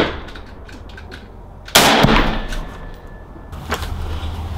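A single AR-15-style rifle shot about two seconds in, with a short echo dying away after it.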